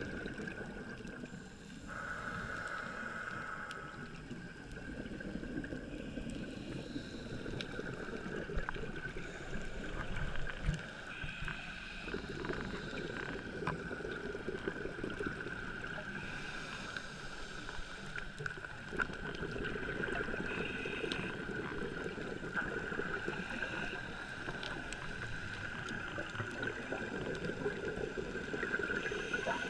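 Underwater sound picked up through a diver's camera housing: scuba regulator breathing, with exhaled bubbles swelling and fading every few seconds, over a steady high hum and scattered small clicks.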